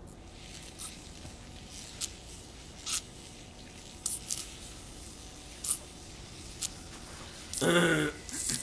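Scattered short clicks and rustles, roughly one every second, as of things being handled. A brief murmur of voice comes near the end.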